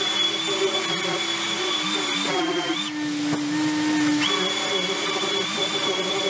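Electric orbital sander running on a wooden handle with a steady high whine, over the steady hum of a dust extractor drawing through its hose. The sander stops about three seconds in and starts again about a second later.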